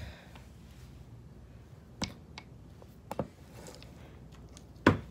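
Handling noise: a few light knocks and clicks, the loudest near the end, over quiet room tone.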